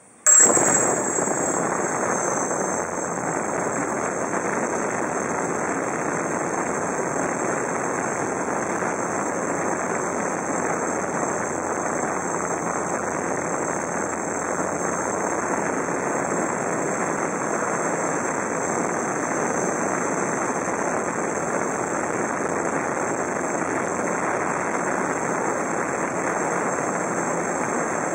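GAUI QuadFlyer 330X quadcopter's electric motors and propellers starting suddenly a moment in and then running steadily in flight, heard from its onboard camera, with a steady high motor whine over the propeller noise.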